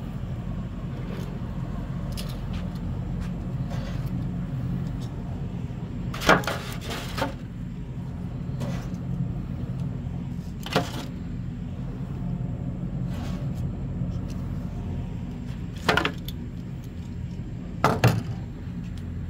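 Metal grilling tongs clinking against a charcoal grill's wire grate and an aluminium foil pan as chicken is lifted and set down: a handful of sharp, separate clinks, the loudest about six seconds in and a quick pair near the end. Under them is a steady low rumble.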